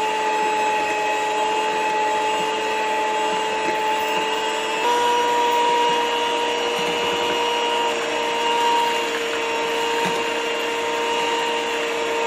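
Electric hand mixer running steadily, its twin beaters whipping butter, sugar and egg in a glass bowl. The motor's whine steps up slightly in pitch about five seconds in.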